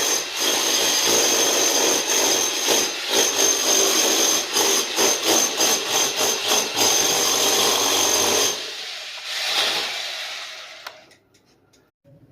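Power tool running hard with a high-pitched whine, its level pulsing repeatedly through the middle as it works under load. The motor cuts off about eight and a half seconds in and winds down to quiet.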